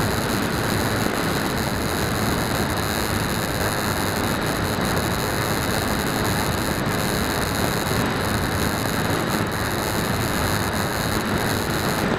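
Steady rush of air over the onboard camera of a Bixler 2 foam RC plane in level flight, mixed with the constant drone of its electric motor and pusher propeller. The sound holds even throughout, with no changes in throttle.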